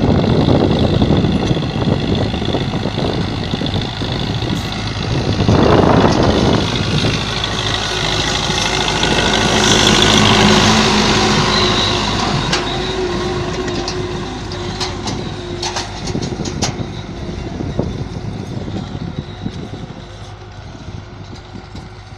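Belarus 510 tractor's diesel engine running under load as it pulls a disc harrow across a field. It is loudest as the tractor passes close by, then fades as it moves away near the end.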